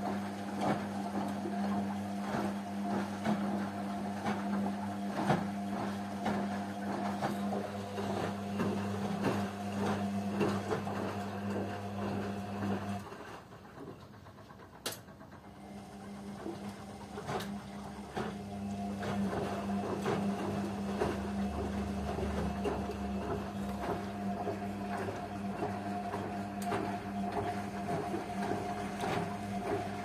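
Hotpoint Ariston and Rainford front-loading washing machines on a wash cycle: a steady drum-motor hum with clothes and water sloshing in the drums. About 13 s in the motor stops and goes quiet for a few seconds, then starts up again, as the drum pauses between tumbles.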